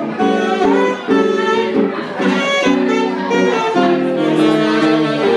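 Saxophone and guitar jazz duo playing live, the saxophone carrying a melody of sustained notes that change pitch every half second or so.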